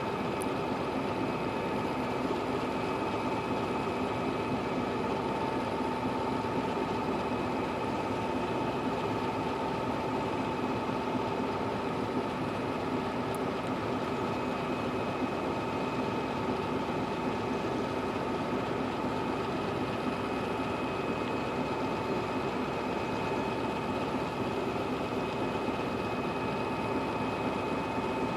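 Steady train noise: an even rumble with a constant, unchanging hum of several steady tones.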